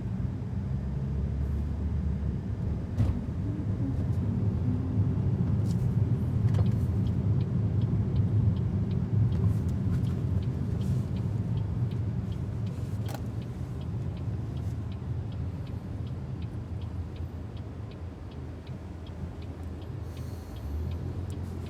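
Low rumble of road and tyre noise inside a small electric car (BYD Seagull) being driven, with no engine sound; it swells through the middle and eases somewhat near the end. A few sharp knocks and a faint, regular ticking come through in the middle.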